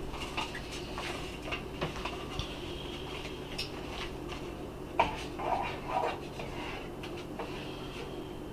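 A spoon clinking and scraping against a metal cooking pot and a bowl as chili is dished out: scattered light knocks, a sharper clink about five seconds in, then a couple of brief scrapes. A steady low hum runs underneath.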